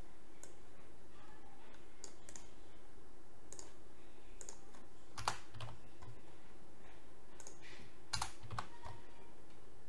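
Computer keyboard keys pressed now and then, separate sharp key clicks rather than continuous typing, with a few louder strokes about halfway and near the end, over a steady low hum.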